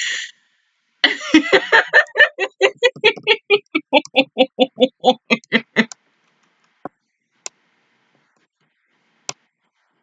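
A woman laughing hard: a fast run of "ha-ha" pulses, about five a second, that breaks off about six seconds in. A few faint clicks follow.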